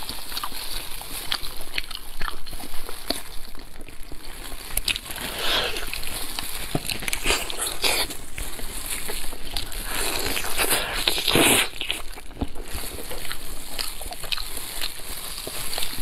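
Wet, sticky tearing and squelching as a large sesame-glazed braised pork knuckle is pulled apart by hand and chewed, in irregular bursts with a few louder tears.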